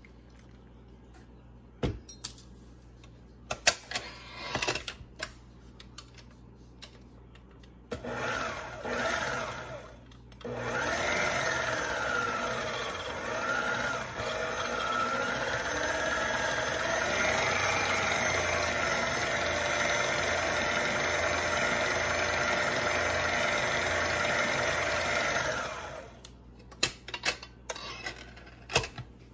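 Electric kitchen mixer beating cake batter of flour and milk: a short run about eight seconds in, then a longer run of about fifteen seconds whose motor pitch rises and dips as it works. A few clicks and knocks of bowl and utensil handling come before and after the runs.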